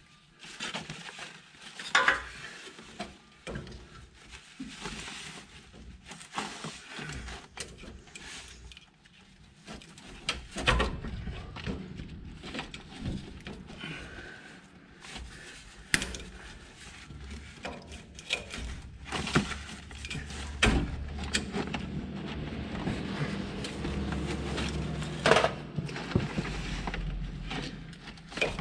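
Scattered metallic clanks and knocks of hand tools and exhaust parts being handled while reinstalling a truck's DPF, with a low steady hum coming in about ten seconds in.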